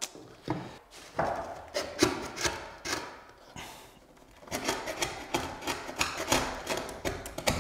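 Screw being driven by hand into a wooden skirting board: repeated rasping, scraping strokes in two runs, with a short lull about halfway through.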